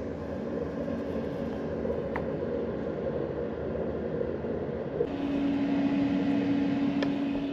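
Autoterm Air 2D diesel air heater running with a steady whir; about five seconds in a steady low hum joins and the sound grows a little louder.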